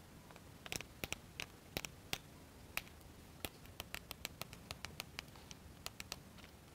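Light, irregular clicks and taps of small plywood model-kit parts being handled and pressed together, as small wooden washers are fitted onto a pin one at a time.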